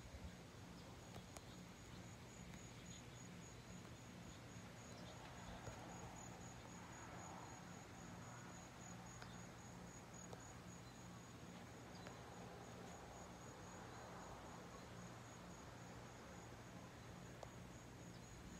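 Faint, steady insect chirping: a high-pitched pulse repeated evenly several times a second, over a low steady hum.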